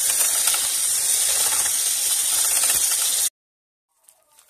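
Electric hand mixer with twin wire beaters running steadily, whisking a thin cake batter of eggs, sugar, oil, milk and lemon juice. It cuts off suddenly a little over three seconds in, and a few faint clicks follow near the end.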